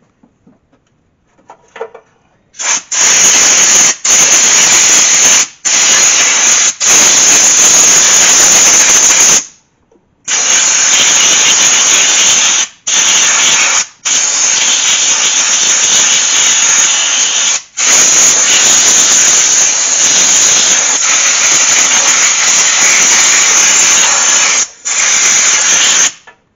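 Compressed air from an air hose hissing loudly in long blasts, blowing leftover electrical parts cleaner out of a headlight wiring connector to dry it. The blasts are broken by short pauses, with a longer break about ten seconds in.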